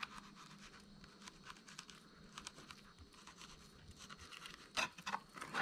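Faint scratching and small clicks of a knife slicing the rib bones out of a butterflied garfish against a cutting board, with a few sharper clicks near the end.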